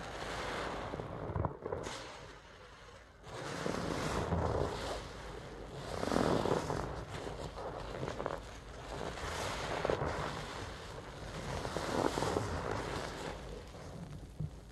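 A soapy sponge squelching as it is squeezed and worked in thick suds of a foamy cleaning solution, with crackling foam. Repeated squeezes come roughly every two seconds.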